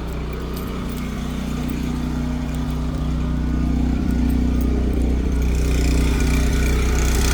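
Onboard RV generator running at a steady hum, growing gradually louder over the last few seconds.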